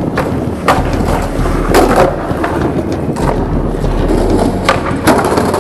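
Skateboard rolling over tiled paving: a steady rough rumble from the wheels, broken by about seven irregular sharp clacks.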